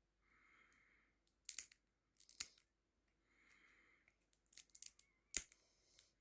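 Knife cutting and scraping open the packaging of a small blind box, in several short, sharp scraping strokes.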